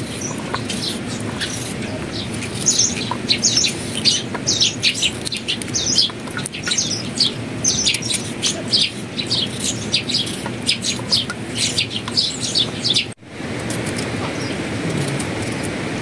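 Small birds chirping in a rapid, continuous run of short, high, falling notes over a steady background rush. The chirping breaks off abruptly about thirteen seconds in, leaving only the background rush.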